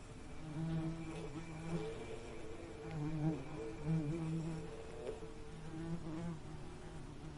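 Bees buzzing in flight: a low, wavering buzz that swells and fades every second or so as the insects move about.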